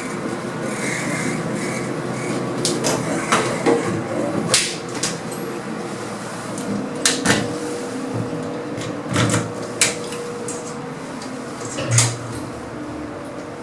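Modernised 1980s Evans lift in operation: a series of clunks and clicks from the doors and mechanism, over a steady hum that sets in about halfway through.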